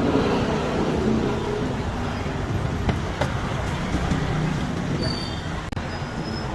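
Busy street ambience: a steady rumble of passing road traffic, with a few short clicks and faint high tones late on.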